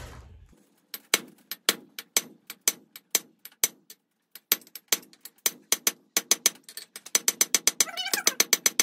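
Hand hammer striking red-hot steel bar stock on an anvil, drawing down a breech-plug tang: a steady run of ringing blows about four a second, a brief pause, then quicker blows near the end.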